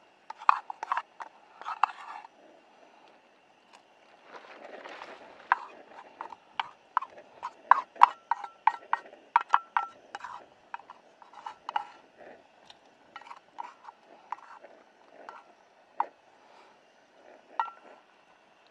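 Wooden spoon scraping and knocking fried carrot and onion out of a small metal pan into an aluminium mess-tin pot of soup: a long irregular run of sharp clicks and taps, a few leaving a brief metallic ring.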